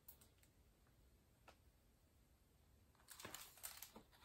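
A few faint clicks, then from about three seconds in a faint papery rustle as a picture book's pages are handled and turned.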